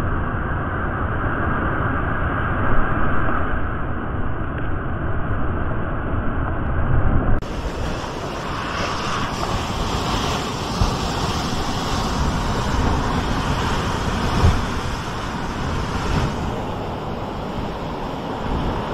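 Sea surf washing on the shore, with wind buffeting the microphone in low rumbling gusts. About seven seconds in, the sound turns abruptly brighter and hissier.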